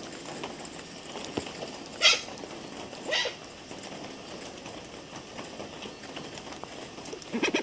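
A hornbill giving two short calls about a second apart, over a steady background hiss.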